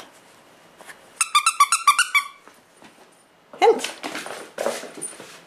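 A puppy playing with a gift toy: a quick run of high squeaks about a second in, then a short burst of lower dog yelping.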